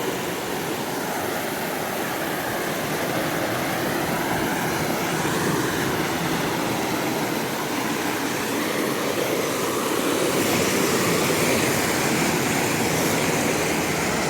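Steady rush of river water flowing past the low submerged bridge, getting a little louder about ten seconds in.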